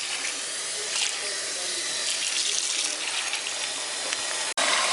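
Faucet water running on high, splashing steadily as a wig is rinsed under it; the sound breaks off for an instant near the end.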